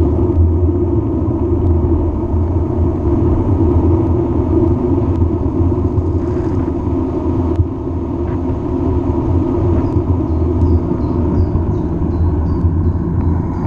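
Steady low wind rumble buffeting the microphone of a camera riding on a bicycle coasting fast downhill.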